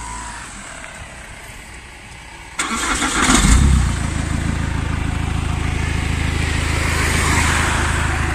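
Opel Zafira engine being started: the starter cranks about two and a half seconds in, the engine catches with a brief flare, then settles into a steady idle.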